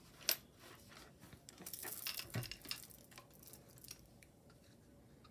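Faint clicks and light scraping from handling a stone pendant and a handheld gem tester as its probe is set against the stone. There is one click just after the start, then a close cluster of small clicks and scrapes about two seconds in.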